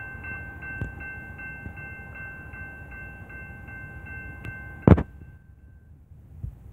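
A repeating electronic chime dinging about two to three times a second over a low rumble. About five seconds in comes a single heavy thump, and the chime stops just after it.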